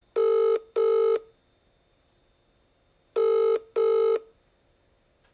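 Telephone ringing tone in a double-ring pattern: two short rings close together, a pause of about two seconds, then another pair. It is the ringing heard on a phone call before it is answered.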